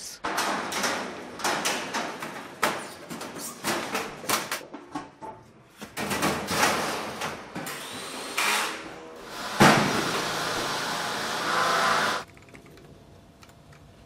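Knocking and clattering of metal storage-unit panels being fitted together. Near the end a power drill runs steadily for about two and a half seconds and stops abruptly.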